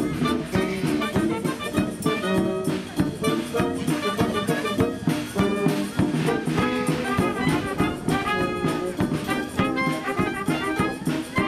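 Military wind band playing a tune: clarinets, alto saxophone and French horn together, over a regular beat.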